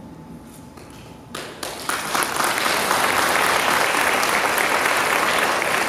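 Audience applauding: a few scattered claps about a second in, swelling into full, steady applause.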